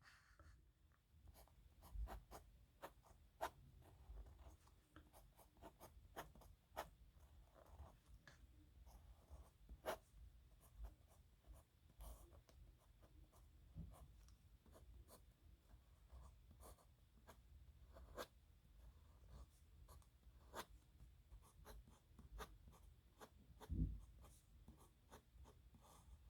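Nib pen scratching across paper in irregular strokes, with many small sharp ticks as the nib catches and lifts. A dull low knock, likely a hand or the pen against the desk, comes near the end.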